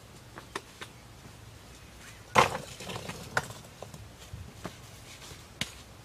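Loose stones knocking and clacking together as they are handled: a handful of sharp knocks, the loudest a short clatter about two and a half seconds in.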